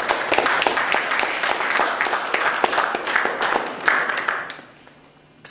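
Audience applauding: many hands clapping densely, dying away about four and a half seconds in.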